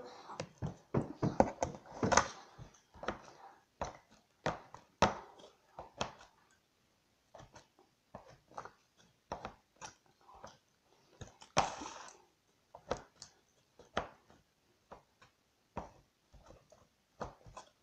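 A ruler chopping into sticky homemade slime: irregular sharp taps, close together for the first few seconds, then sparser, with a brief rustling noise about twelve seconds in.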